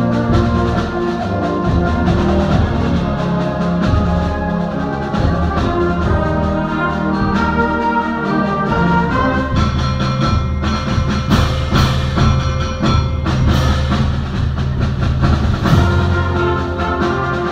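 High school symphonic band playing a concert-band piece live: brass and woodwinds over low bass and percussion with timpani, with several sharp percussion strikes in the second half.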